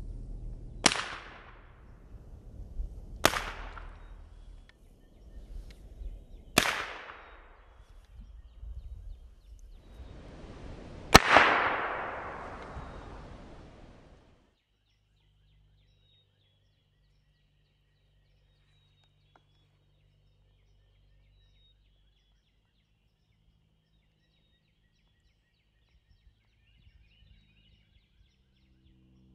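Four gunshots from a .54 caliber Greene twist-action percussion rifle, a few seconds apart, each followed by an echoing tail; the fourth is the loudest and echoes longest. After it, near silence for the second half.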